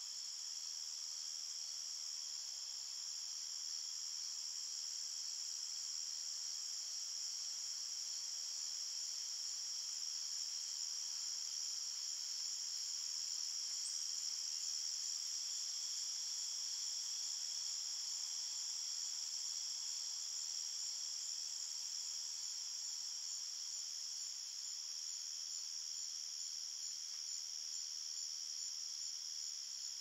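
A chorus of crickets chirping steadily at a high pitch, several overlapping pitches sounding without a break.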